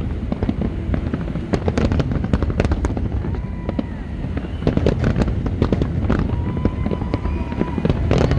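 A fireworks display going off: a dense, irregular stream of bangs and crackles over a low rumble.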